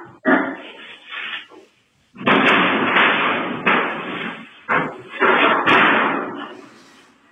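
Loud crashes and bangs as an elephant barges among buffalo and the metal stall railings of a shed: about six heavy impacts, each ringing on for a second or so.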